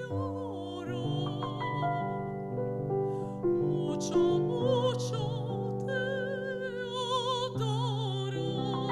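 A woman sings in an operatic style with wide vibrato, accompanied by sustained chords on a digital piano.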